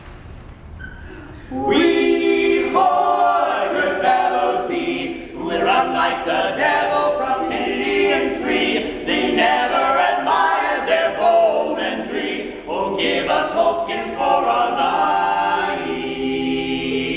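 Barbershop quartet of four men's voices singing in close a cappella harmony. The singing is soft for the first second and a half, then comes in loud.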